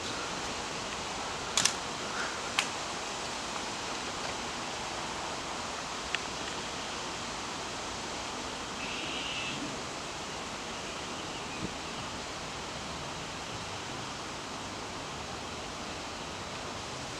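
Steady outdoor background hiss, with a few brief sharp clicks scattered through it.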